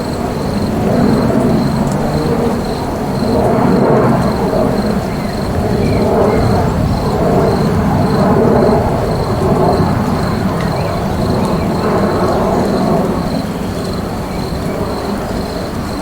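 Rain ambience: a steady, deep wash of rain with a low rumble that swells and eases every few seconds. A thin, high pulsing tone repeats evenly throughout.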